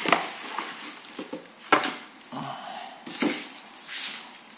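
Cardboard boxes and plastic packaging being handled: rustling and scraping, with three or four sharp knocks as a boxed hair dryer is pulled out of its shipping carton.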